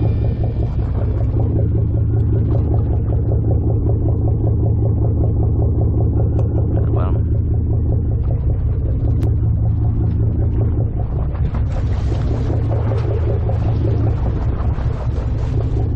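Boat engine running steadily with a deep, even rumble. A rushing hiss joins over the second half.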